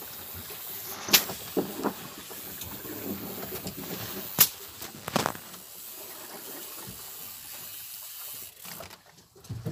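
Steady hissing background noise with a few sharp knocks and clicks: fish being handled in a cooler box.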